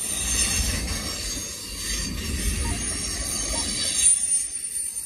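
Freight train cars rolling past close by: steel wheels rumbling on the rails, with a thin, steady high-pitched wheel squeal above the rumble and a brief louder surge about four seconds in.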